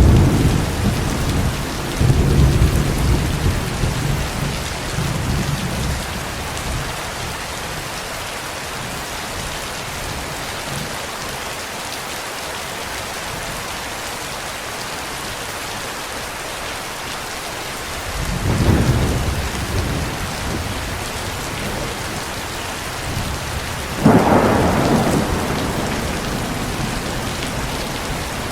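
Steady heavy rain with rolling thunder. The first rumble is fading at the start, another swells a couple of seconds in, and a third comes about two-thirds of the way through. Near the end a rumble breaks in suddenly, louder and sharper.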